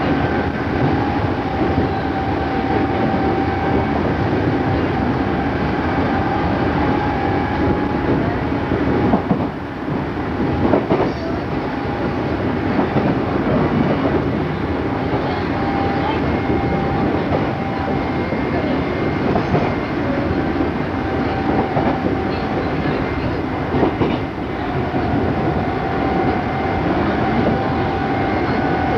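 Running sound of an unrenovated Odakyu 8000 series electric train with field-chopper control: steady wheel-on-rail rumble with occasional rail-joint clicks. A steady whine sits over it, fading about ten seconds in and coming back about twenty-five seconds in.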